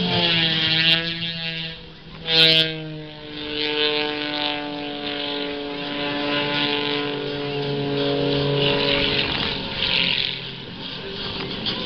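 Aerobatic biplane's propeller engine droning, its pitch dropping and shifting as the plane maneuvers. A sharp bump comes about two and a half seconds in.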